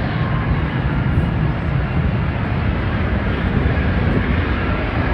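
Military aircraft engine noise at an air show: a loud, steady, deep rumble.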